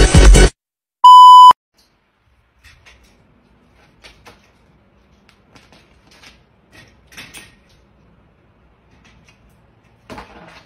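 Music cuts off, then a loud electronic beep sounds once for about half a second. Faint scattered taps and rustles follow, as a cat climbs a white wire storage rack.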